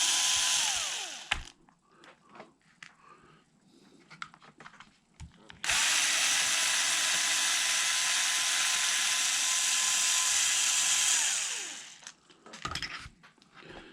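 Small power driver backing out the 2 mm screws on an RC truck's receiver-box cover: a short run in the first second, handling clicks, then a longer steady run of about six seconds with a motor whine that winds down as it stops.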